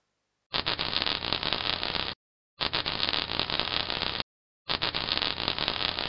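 Closing logo sound effect: three bursts of crackling noise, each about a second and a half long, each cutting off sharply after a brief gap.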